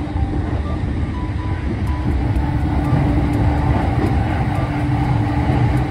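Steady low rumble of a commuter electric train running at speed, heard from inside the car, with a steady hum over it.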